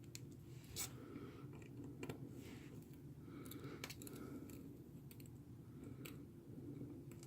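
Faint, irregular clicks and short scrapes of a small screwdriver and tiny screws being fitted into a smartphone's frame, over a low steady hum.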